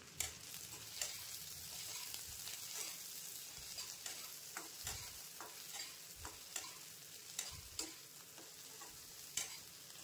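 Chopped onion frying in a nonstick wok with a steady sizzle, while a spatula stirs it, tapping and scraping against the pan at irregular moments, about once a second.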